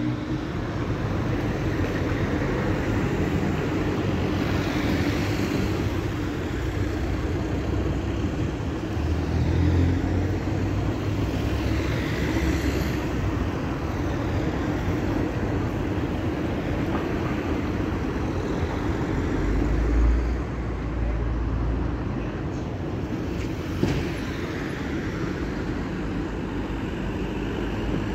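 Road traffic on a city roundabout: cars driving round and past one after another, a steady engine and tyre rumble with low swells as vehicles go by about ten and twenty seconds in.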